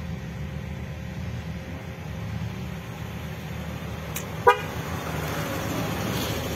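Suzuki Jimny LJ80 engine running at low revs as it crawls along a muddy trail. A single short horn toot sounds about four and a half seconds in.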